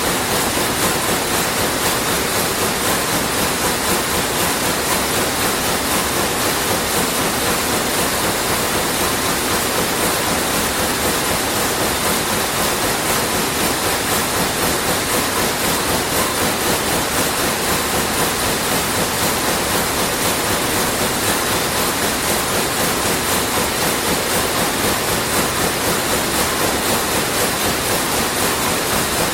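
Sulzer weaving loom running: a loud, dense, steady mechanical clatter with a fast, even beat.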